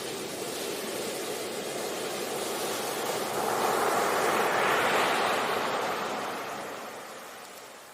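Ocean surf on a beach: a steady wash of water, with one wave swelling about halfway through, loudest around five seconds in, then fading away near the end.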